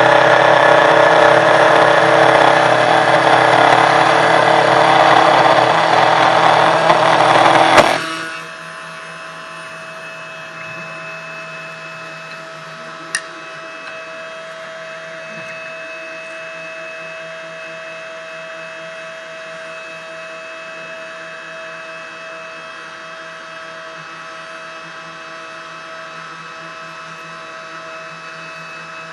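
Desktop CNC 1610 Pro router running loudly while it mills. About eight seconds in the noise drops sharply to a quieter steady whine, with a single click a few seconds later.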